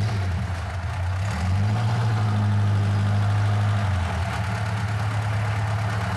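Freshly rebuilt Lada four-cylinder engine, still cold, running at low revs as the car rolls off slowly. The engine note rises a little about one and a half seconds in and eases back about four seconds in.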